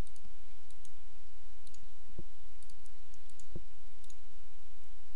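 Computer mouse buttons clicking: short, light clicks, often in quick pairs, every second or so. Under them runs a steady low electrical hum with a faint steady tone.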